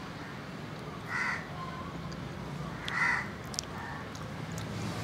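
A crow cawing twice, about two seconds apart, over faint outdoor background noise.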